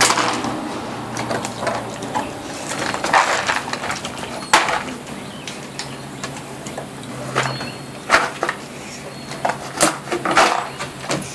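Irregular sharp knocks and clicks of a plastic bottle filled with dry treats being nosed and pushed about on a wooden deck by a dog, with the rattle of treats and the dog picking pieces off the boards.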